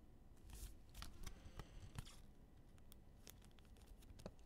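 Quiet handling of trading cards: faint crinkling of a plastic card sleeve and scattered light clicks and taps as cards are moved and set down, with brief rustles at about half a second and two seconds in.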